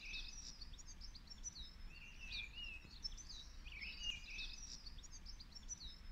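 A songbird singing short phrases of high, quickly changing notes, repeated about every two seconds, over a faint low background rumble.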